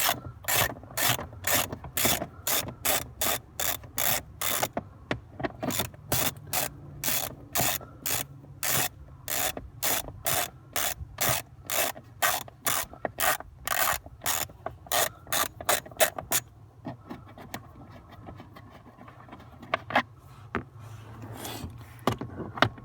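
Hand ratchet clicking in quick, even strokes, about three a second, while backing out a screw. The clicking stops about sixteen seconds in, leaving quieter rubbing and handling noise.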